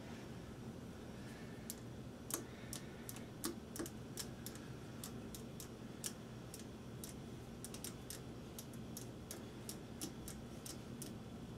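Screwdriver driving a small screw to fix the tuner onto a diddley bow: a string of sharp, irregular clicks, a few a second, starting about two seconds in.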